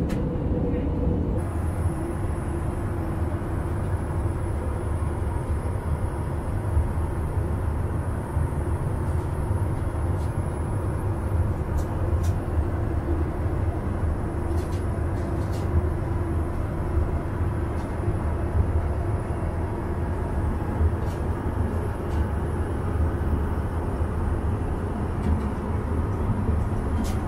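Steady cabin noise of an Airbus A320 in cruise heard inside the lavatory: a constant low rumble of engines and airflow with a faint high whine, and a few light clicks.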